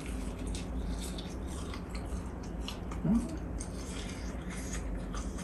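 Crunchy bites and chewing of air-fried menbosha (Chinese-style fried shrimp toast), a run of crisp crackles from the fried bread crust. A short hum about three seconds in.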